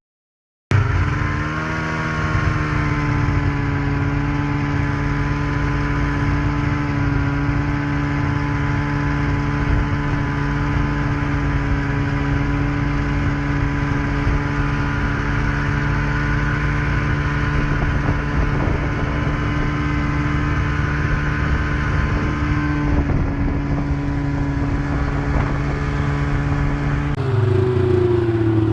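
Tractor engine running at a steady speed, an even pitch held for most of the time; near the end its pitch falls as it is throttled down.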